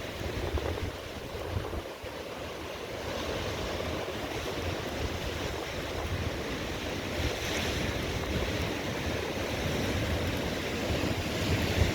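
Sea waves breaking and washing in, surging louder a few times, with wind rumbling on the microphone.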